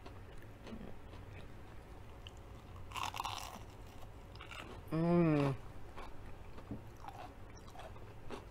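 Close-up crunch of a bite into a crisp breaded zucchini piece about three seconds in, followed by soft chewing with small crunches. A short hummed 'mm' of approval comes about five seconds in.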